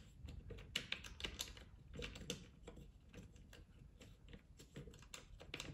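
Faint, irregular small clicks and ticks, a few a second, of a 3 mm Allen key turning the screws that hold a new cartridge in an air quality monitor's plastic housing.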